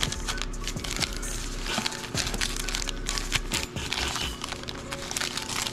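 Foil-wrapped Panini Prizm Draft Picks trading-card packs crinkling and crackling as they are handled and gathered into a stack, a dense run of small irregular crackles.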